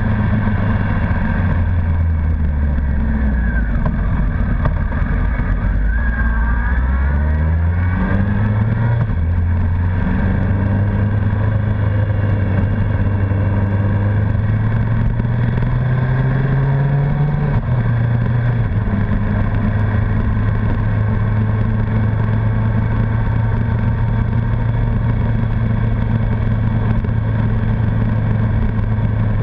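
Honda CBR1100XX Blackbird's inline-four engine on the move. Its note sinks as the bike slows at first, then climbs twice, the second climb ending in a short drop near the middle, and holds a steady cruise for the rest.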